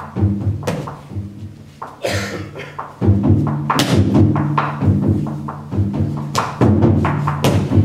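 Taiko drums played in a driving rhythm: deep pitched drum strokes with sharp clicking stick strikes. The drumming drops lower for a moment with a brief rushing noise about two seconds in, then comes back loud about three seconds in.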